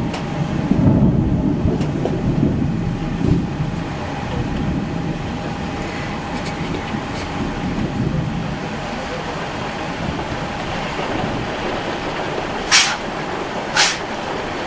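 Steady rain during a thunderstorm, with a low rumble of thunder swelling and fading over the first few seconds. Two sharp clicks come near the end.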